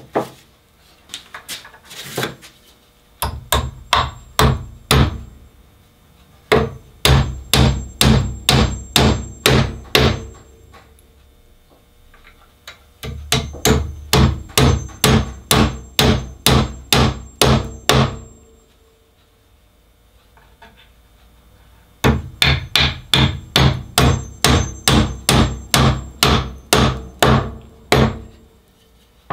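A hammer driving nails into the wooden rocker of a rocking horse: several runs of quick, even strikes, about two to three a second, with short pauses between runs.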